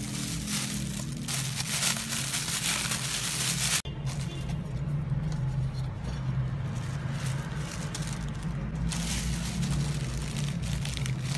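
Clear plastic packaging and sheets of shrink film rustling and crinkling as they are handled. The crinkling is dense for the first few seconds, stops abruptly, and returns briefly near the end over a steady low hum.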